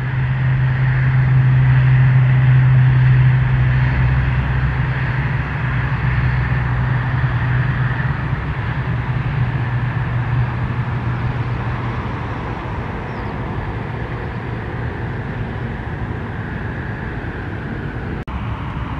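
PZL M28 twin-turboprop of the Polish Air Force at take-off power, rolling and lifting off: a steady low propeller drone with turbine noise over it. It is loudest a few seconds in and slowly fades as the aircraft climbs away, with a brief drop-out near the end.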